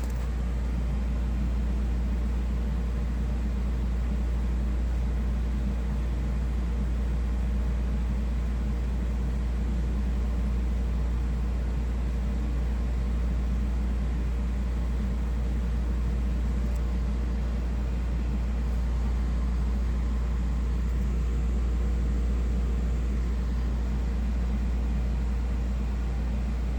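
A 12,000 BTU air conditioner running: a steady low hum from the compressor with fan hiss over it, unchanging throughout.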